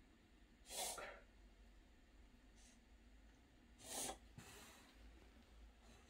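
Small dog reverse sneezing: two short, noisy bursts of forced breath through the nose, about a second in and again about three seconds later.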